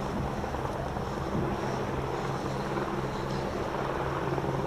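Steady low engine drone from a distant machine, an unchanging hum.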